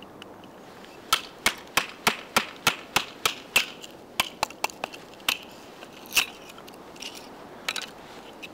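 A small knife being batoned through a small piece of wood: a quick run of sharp wooden knocks, about three a second, then a few scattered knocks.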